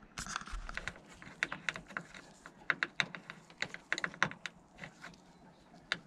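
Small irregular clicks and taps, with some rustling, of gloved hands fitting the door handle parts and turning a 4 mm Allen key in the handle's retaining bolt at the end of the door.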